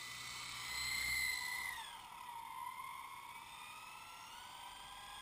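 Small RC model helicopter's motor and rotor whining, with a high tone that grows louder about a second in. Around two seconds in the whine drops steeply in pitch as the helicopter throttles down to land on the water, then slowly creeps back up.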